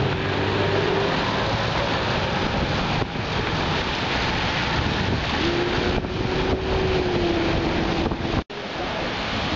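Strong wind buffeting the microphone: a loud, steady rush, with a faint steady tone underneath from about halfway through. The sound cuts out abruptly for a moment near the end.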